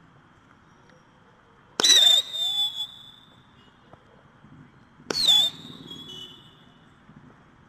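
Two shots from a 12-shot whistling and crackling sky shot firework cake, about three seconds apart: each a sharp loud pop as the shell launches, followed by a high whistle lasting about a second.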